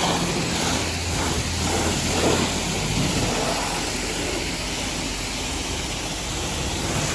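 Self-service car wash spray wand spraying soapy water onto a car: a steady hiss of spray, with a low hum underneath that drops away about three seconds in.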